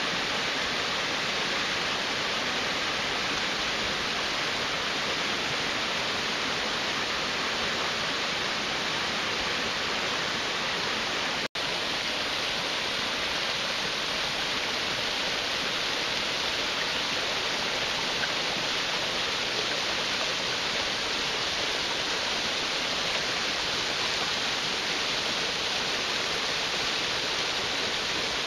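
Small mountain waterfall cascading down rock ledges: a steady rushing hiss of falling water, cut off for an instant about eleven seconds in.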